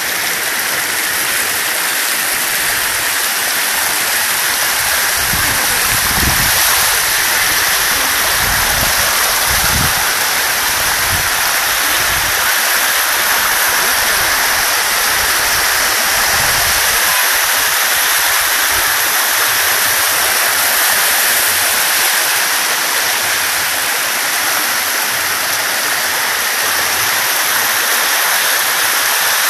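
Thermal spring water running steadily over the travertine terraces, a continuous rushing hiss, with a few low rumbles in the first half.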